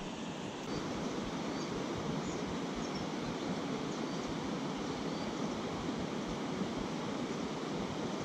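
A small river running over a shallow stony riffle: a steady rushing hiss of water.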